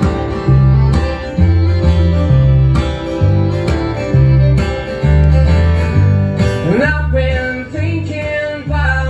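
Live acoustic string band playing a country tune: fiddle, strummed acoustic guitar and upright bass, with the bass notes strong and alternating on the beat. A man's singing voice comes in about seven seconds in.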